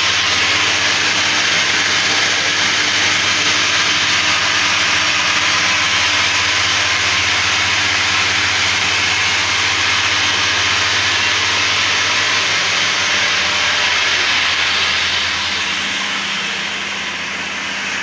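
Commercial reverse-osmosis water plant running: a loud, steady hiss of pressurised water flow over a low hum from its pump motor, getting a little quieter near the end.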